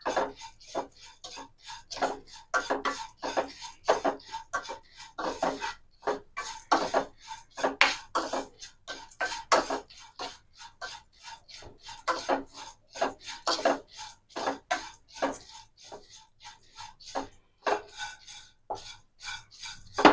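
Plastic spatula stirring and scraping dry flattened rice (aval) in a nonstick kadai: a steady run of short rustling scrapes, about three a second, as the flakes are roasted until they turn crisp.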